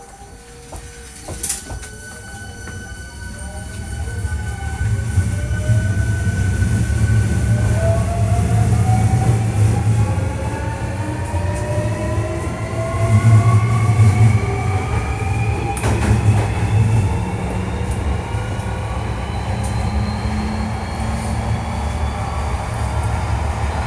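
Hankyu 1300 series train's Toyo IGBT VVVF inverter and traction motors whining as the train accelerates: several tones rise steadily in pitch over the rumble of wheels on rail. This is a unit known for an odd inverter sound.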